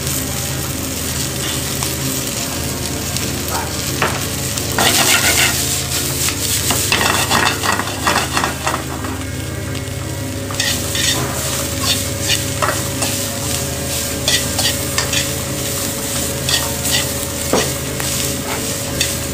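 Radicchio, pine nuts and raisins sizzling in hot olive oil in a metal frying pan, with repeated clicks and scrapes of stirring against the pan. The frying is loudest about five seconds in. A steady low hum runs underneath.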